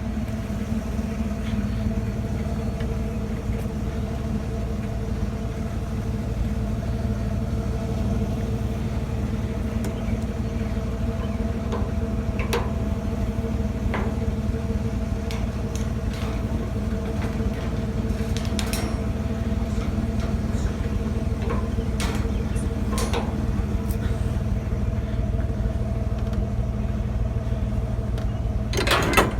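Car running steadily, a constant low hum with a few light clicks and rattles scattered through it.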